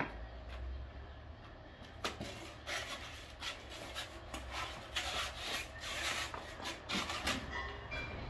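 Polystyrene foam slabs rubbing and scraping against each other as one is pulled off a stack and handled, in a string of irregular scuffs starting about two seconds in.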